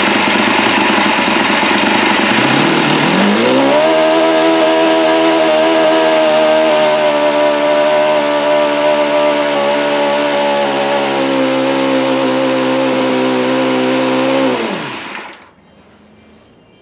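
Enya 46-4C four-stroke glow engine running on a test stand with a propeller, its bearings sounding bad. It runs rough at first, picks up speed about three seconds in and holds an even pitch, then slows and stops about fifteen seconds in. The engine is losing compression through a leaking valve or head.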